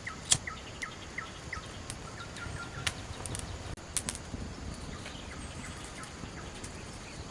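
A small bird calling: a series of short falling chirps about three a second, then a quick run of notes, with fainter calls later. Several sharp clicks cut through, the loudest just after the start, over a steady low outdoor rumble.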